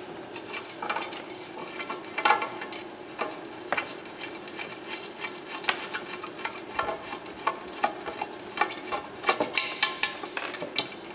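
Handling noise as a force sensor is worked loose from under an aluminium track: irregular small clicks, taps and rattles of plastic parts and cables, with a quicker run of clicks near the end, over a steady faint hum.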